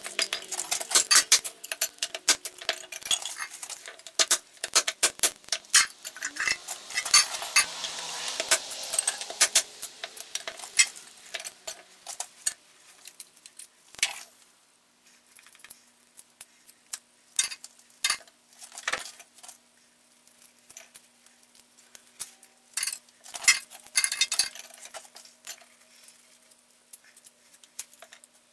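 Rapid clinking and clattering of small hard objects: dense for about the first twelve seconds, then scattered single clicks. A faint steady hum comes in about halfway through.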